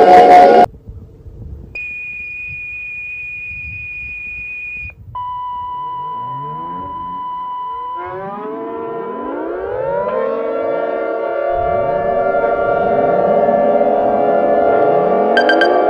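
Fan-made emergency alert audio: a loud sound cuts off within the first second, then a steady high beep tone holds for about three seconds, followed by a steady lower tone for about four seconds. Then several sirens wind up one after another, each rising in pitch and levelling off, overlapping into a sustained wail that slowly gets louder.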